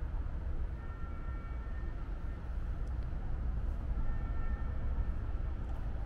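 Steady low rumble of outdoor city ambience. Faint high held tones, each about a second long, come through twice.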